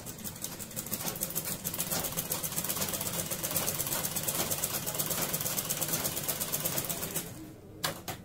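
Black straight-stitch sewing machine stitching a seam in a cotton petticoat waistband: a fast, even clatter of needle strokes that picks up about a second in and winds down near the end, followed by a few sharp clicks.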